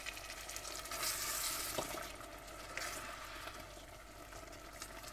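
Chicken curry sizzling and bubbling in a steel saucepan, the fried masala just topped up with water, with a spoon stirring through it. The sizzle is loudest about a second in, then dies down.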